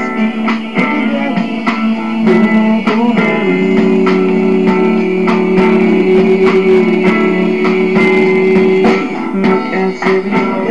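Music led by guitar, with a sharp steady beat and a chord held for several seconds in the middle.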